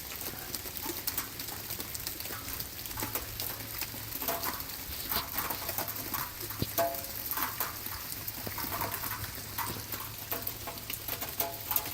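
Ice shed from ice-glazed trees as it melts: many small pieces of ice and meltwater drops falling through the branches and hitting the ground, a dense, irregular run of small ticks and clicks over a steady hiss.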